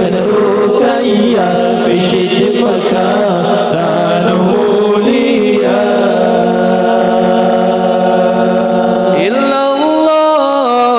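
A group of men chanting an Acehnese nasyid (sya'ir) a cappella into microphones: long held, melismatic notes stepping from pitch to pitch over a steady low note, with a new phrase sliding in about nine seconds in.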